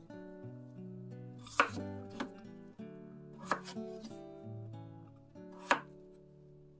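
Kitchen knife cutting a peeled potato on a plastic cutting board: about five sharp, uneven knocks of the blade striking the board, the loudest near the start and near the end. Background music plays underneath.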